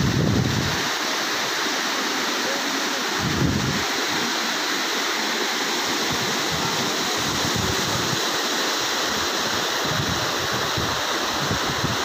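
Mountain waterfall and the rocky stream below it rushing steadily. Wind buffets the microphone with low rumbles near the start, about three and a half seconds in, and on and off through the second half.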